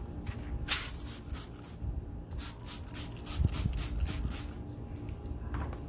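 Hand spray bottle misting water onto a car headlight to wet protective film: one short spritz about a second in, then a quick run of short hissing spritzes in the middle.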